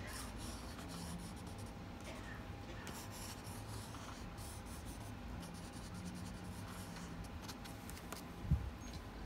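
Red water-soluble wax crayon scratching across paper in faint, irregular strokes as an area is coloured in. A brief low thump comes near the end.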